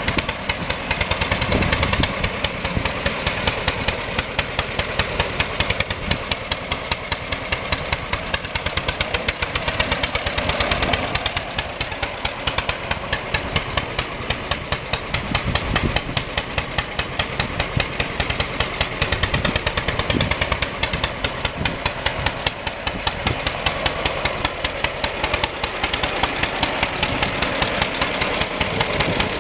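John Deere B tractor's two-cylinder engine running with a steady train of evenly spaced exhaust pops while the tractor is driven about.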